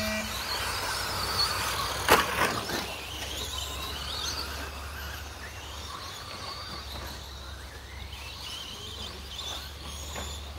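A pack of 1/10-scale two-wheel-drive electric short course RC trucks launching off the start and racing away, their motors' high whines rising and falling with the throttle and easing off as they move off. A sharp knock about two seconds in is the loudest sound.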